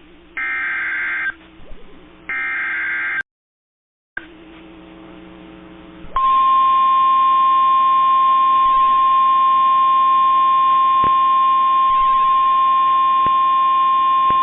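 NOAA Weather Radio emergency alert announcing a tornado warning. It begins with the last two of three bursts of the SAME digital header, each about a second of buzzy data tones. After them comes about a second of dead silence, then a couple of seconds of faint radio hiss, and then, about six seconds in, the single steady Warning Alarm Tone starts and holds.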